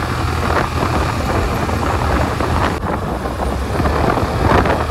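Steady wind rush and buffeting on a helmet-mounted microphone while riding a Suzuki Avenis scooter slowly, the scooter's running mixed into the low rumble.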